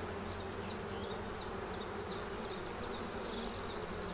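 Honeybees buzzing in an open hive while a brood frame is lifted out: a steady hum of many bees.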